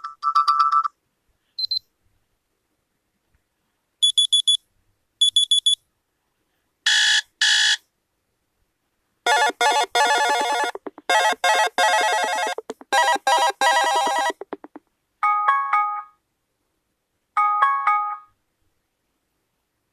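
A series of short electronic phone notification and alarm tones played one after another, with dead silence between them. Brief high beeps and quick two-part bursts come first, then a longer run of rapid repeated notes, then two short chimes near the end.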